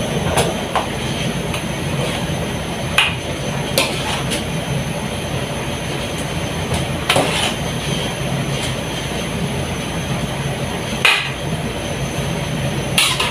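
Steady low rumble of kitchen cooking noise, with about half a dozen short, sharp knocks and clicks of cookware scattered through it.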